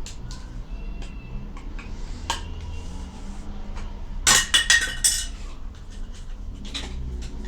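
Hard objects, metal or glass, clinking sharply: a quick run of about five ringing clinks about four seconds in, with a few lighter ticks around it over a steady low rumble.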